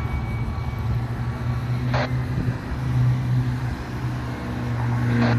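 A vehicle engine running steadily with a low rumble, with two short hisses, one about two seconds in and one near the end.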